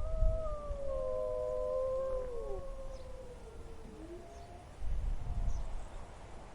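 Wolves howling: two or three long, overlapping howls that slowly bend and fall in pitch, fading after a couple of seconds, with fainter howls following. A low wind rumble swells at the start and again about five seconds in.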